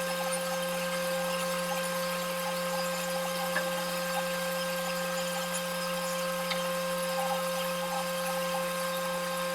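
Wood shaper machine running steadily: a constant hum with a steady whine above it and a faint hiss of the cutting head, unchanging throughout.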